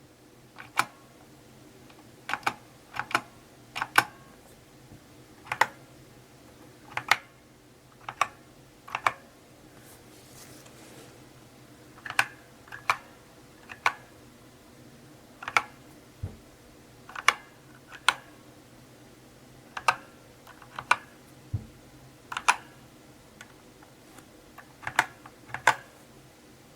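Slow typing on a mechanical keyboard: separate sharp key clicks, single or in close pairs, spaced irregularly about a second apart, with a brief pause near the middle.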